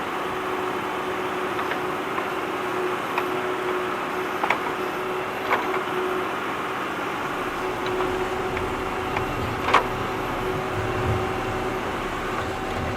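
Tractor engine running at a steady pitch while digging, with scattered sharp knocks and clanks from the work. A deeper rumble comes in about halfway through.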